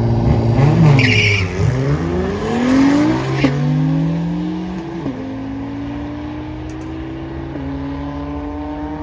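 Drag-race launch: an Acura NSX and another car accelerate hard off the line, with a brief tire squeal about a second in. The engine note climbs and drops back at upshifts about 3.5, 5 and 7.5 seconds in, fading as the cars run away down the strip.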